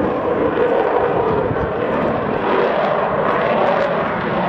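Avro Vulcan bomber flying overhead, its four Olympus turbojets giving a loud, steady jet rumble.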